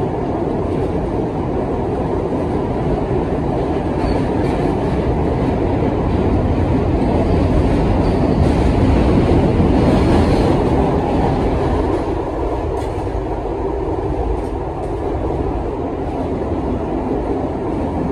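Interior running noise of a moving Budd R32 stainless-steel subway car: a steady, loud rumble of the car running on the rails, swelling to its loudest about halfway through and easing off a little after.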